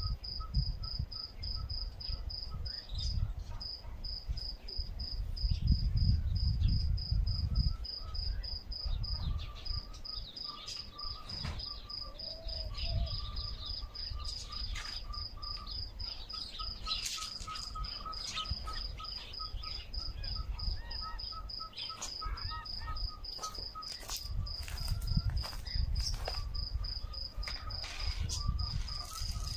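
Crickets chirping in a steady, fast, even high-pitched pulse, with a second lower-pitched chirping line alongside it. Scattered short bird calls come through, over a low rumble that swells in gusts.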